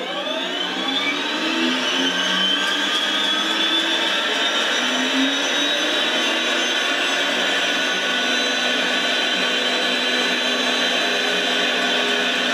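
Benedini sound module playing a turboprop start-up through the model's loudspeaker. The turbine whine climbs in pitch over the first couple of seconds, then holds as a steady high whine over a hiss.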